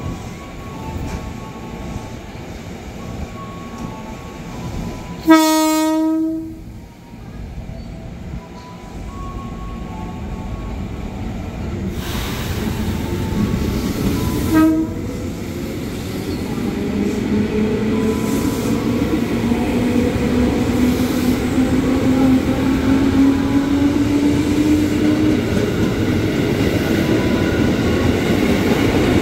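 KRL commuter electric train sounding one loud horn blast of about a second, then a short second toot about ten seconds later. The train then pulls away with a rising motor whine that climbs slowly in pitch as it accelerates, over growing wheel and rail noise.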